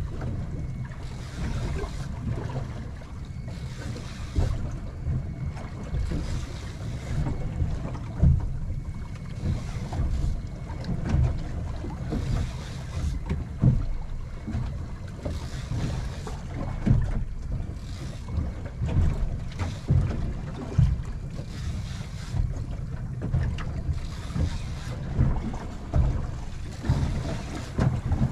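Wind buffeting the microphone over a low rumble, with water slapping against the hull of a small boat in irregular thumps every second or so.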